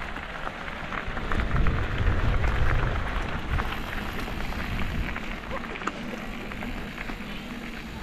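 Mountain-bike tyres rolling over a gravel path, a steady crackle of small stones, with wind rumbling on the microphone. It is loudest about two seconds in.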